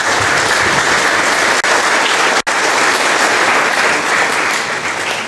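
A congregation applauding, many hands clapping at once, dying down near the end.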